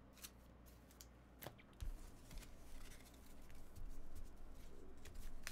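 Trading cards being handled and sorted by hand: faint clicks, light taps and rustling of card stacks, growing a little louder in the second half.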